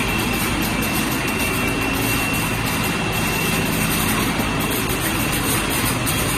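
Steady running noise of a PET bottle sorting line: the conveyor and sorting machinery give a dense, even drone with a low hum and a thin, steady high whine.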